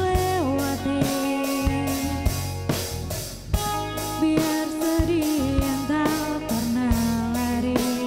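Live band: a woman sings long held notes that slide from one pitch to the next, over electric guitar and a drum kit keeping a steady beat.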